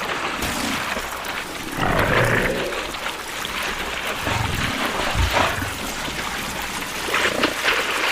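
An animal calling several times, a couple of seconds apart, in a low-pitched voice.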